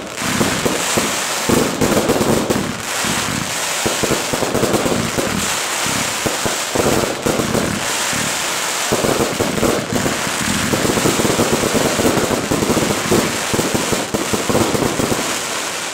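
Display fireworks in a dense, unbroken barrage: many shells bursting with heavy bangs over a continuous crackling of glittering stars.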